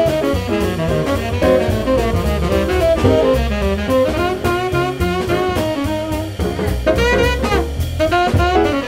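Live jazz combo: a trumpet solo over piano, upright bass and drum kit.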